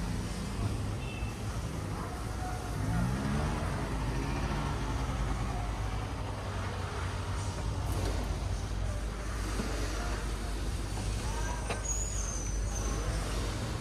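Steady low rumble of motor vehicle engines, with faint voices now and then.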